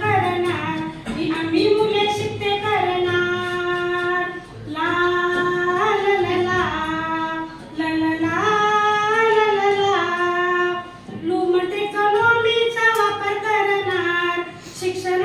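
A woman singing a Marathi song, holding long notes and gliding between them, in four phrases with short breaks between them.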